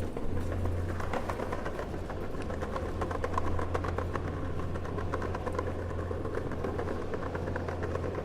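City street ambience: a steady low rumble of traffic with many small clicks and knocks over it.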